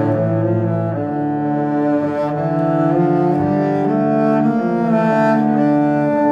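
Background music: slow, long-held string notes that change about once a second.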